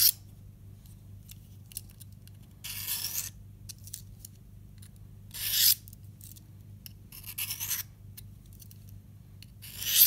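The steel blade of a Swiss Army knife is drawn freehand along a ceramic sharpening rod, a dull edge being honed back. There are about four separate scraping strokes, each under a second, roughly two seconds apart.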